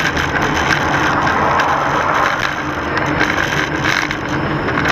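Steady road noise inside a moving car: engine and tyres running on the road surface, with no impact or sudden event.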